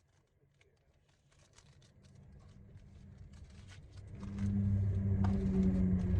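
Car engine running, heard from inside the cabin: near silence at first, then a low hum fades in and becomes a steady drone about four seconds in, with faint ticks.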